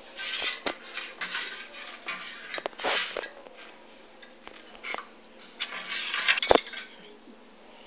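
Stainless steel pans and a ladle clattering and scraping as a saucepan of dissolved jaggery syrup is set into a larger vessel of water to cool. Irregular clinks and scrapes in the first few seconds, and a sharp metal knock a little after six seconds in, the loudest sound.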